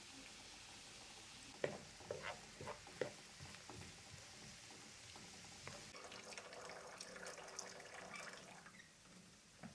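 Chopped onions sizzling faintly in oil in a frying pan, with a wooden spoon knocking and scraping against the pan several times between about two and four seconds in. From about six seconds, water is poured into a metal jug for a few seconds.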